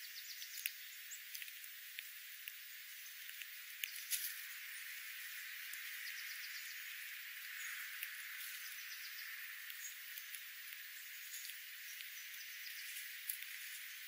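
Small seed-eating birds, sparrows and dark-eyed juncos, foraging on scattered seed on gravel: many light, irregular clicks and ticks of beaks pecking and cracking seed, the sharpest cluster about four seconds in, with a few faint, brief chirps.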